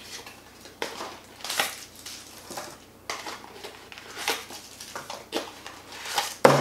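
Small white cardboard battery box being handled and opened: irregular rustling and scraping of card and paper, with a sharper knock near the end.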